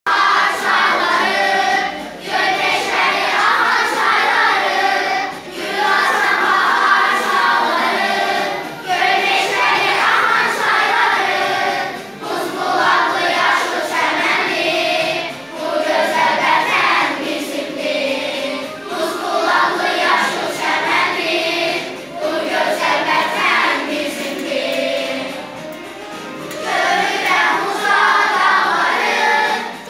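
Children's choir singing in unison in Azerbaijani, in phrases of about three seconds with a short breath between each.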